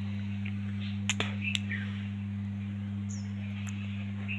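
Steady low hum, with small birds chirping in short falling notes and a few sharp clicks just after a second in.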